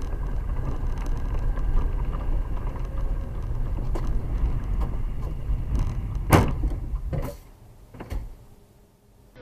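Low, steady road and engine rumble of a car driving on a wet, slushy road, heard from inside the cabin. A sharp knock about six seconds in is the loudest sound, two fainter clicks follow, and then the rumble fades away.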